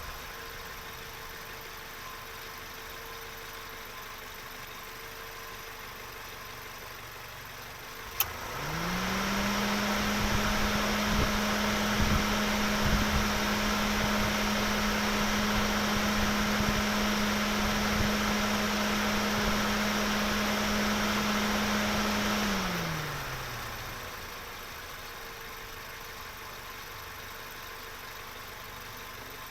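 Car engine running at a low, steady idle. After a click about 8 seconds in, it revs up quickly and holds at steady higher revs for about 13 seconds, then the revs fall back to idle.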